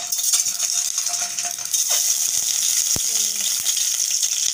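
Hot oil sizzling steadily in a steel pan as peeled boiled eggs are put in to fry, with one sharp tap about three seconds in.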